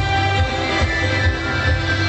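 Music with a steady bass beat, a little over two beats a second, under held melodic tones.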